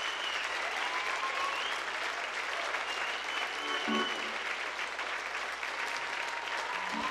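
Concert audience applauding steadily after a song, with a few long high whistles from the crowd.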